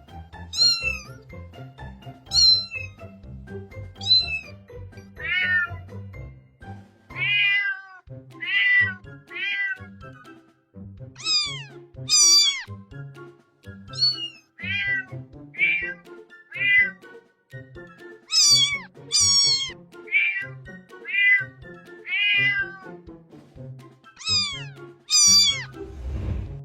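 Kittens meowing over and over, about twenty short high-pitched meows that fall in pitch, some coming in quick pairs, over soft background music.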